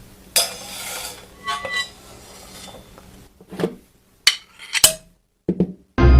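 Sparse drum-kit and cymbal strokes played as sound effects, sounding like clinking dishes and cutlery: a ringing cymbal-like wash about half a second in, then a handful of short sharp hits, with a louder full-band hit starting right at the end.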